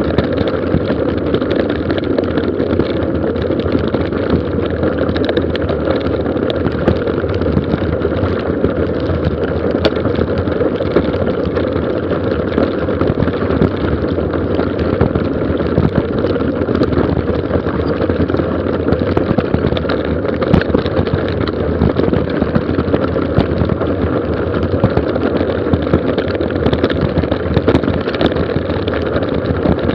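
Mountain bike descending a gravel forest road at speed: a steady rush of wind and tyre noise, with many small clicks and rattles from gravel and the bike.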